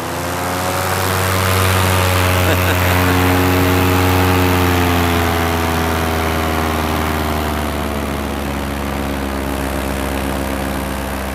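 Paramotor engine and propeller running close behind the pilot, throttled up about a second in for take-off from the back of a moving motorboat. It then holds a steady pitch and eases off slightly in pitch and loudness in the second half.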